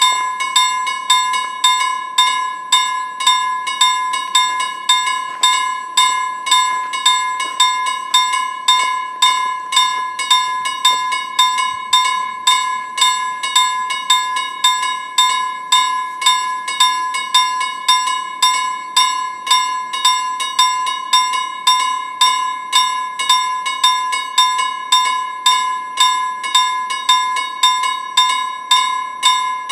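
Level-crossing warning bell ringing in a steady run of evenly spaced strikes, a little over one a second, each with the same bright ringing tone. The crossing is active with barriers down: the warning that a train is approaching.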